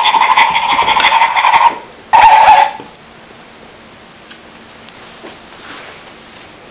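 Barking toy ball playing recorded dog barks through its small speaker: one long burst at the start and a shorter one about two seconds in. After that there are only soft scattered knocks.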